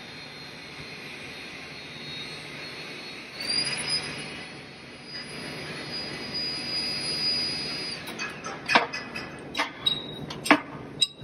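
Hydraulic guided-bend test machine running while a welded test coupon is bent. A steady hum is joined about three seconds in by a high whine that holds until about eight seconds in. Then come several sharp metal clanks.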